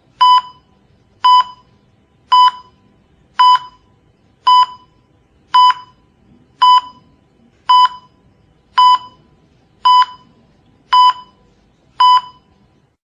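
Cardiac monitor heartbeat beep sounding regularly, twelve short high beeps about one every 1.1 seconds (a pulse of roughly 55 a minute). The beeps stop near the end.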